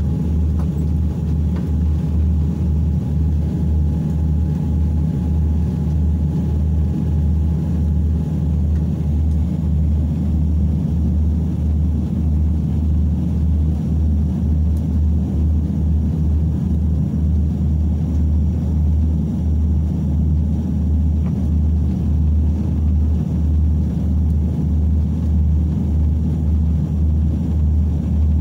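Steady low drone of a turboprop airliner's engines and propellers heard inside the cabin on final approach, landing gear down.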